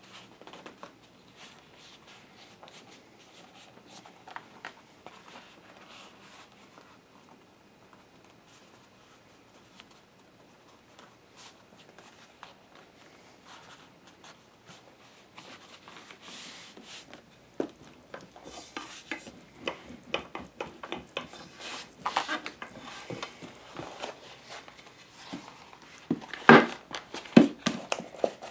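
Hands rubbing and pressing leather around a wooden dowel while forming a holster: scattered soft rubbing noises and small clicks. They grow louder and busier over the last ten seconds, with a cluster of sharper knocks near the end.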